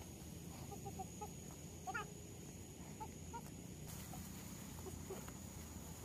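Chickens clucking faintly in short, scattered calls, with one louder rising call about two seconds in, over a steady high thin tone.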